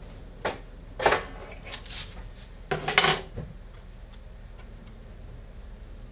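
Hands handling things at a boilie rolling table: a few short knocks and clatters, the loudest about a second in and around three seconds in, then a few faint ticks.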